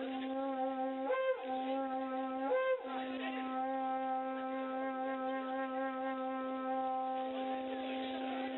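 A wind instrument sounding a steady low note, broken twice in the first three seconds by short upward swoops, then held unbroken for about five seconds. No drums are struck.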